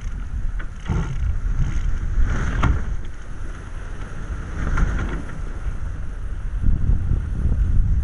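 Sailboat under sail: wind buffeting the microphone in a steady low rumble, with water rushing along the hull that swells twice, about two and a half and five seconds in.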